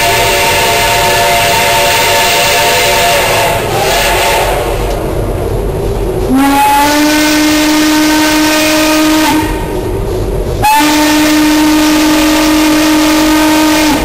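Steam locomotive whistles blowing for a road grade crossing. A chime whistle's chord sounds for the first few seconds, then a single-note hooter whistle gives two long blasts, each sliding up to pitch as it starts. A steady hiss of steam and the working locomotive runs underneath.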